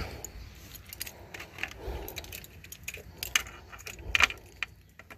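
A bunch of keys jangling in the hand, a string of scattered light clicks and chinks.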